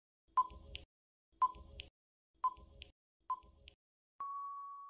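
Quiz countdown timer sound effect: four short ticks about a second apart, then a steady beep near the end as the count runs out.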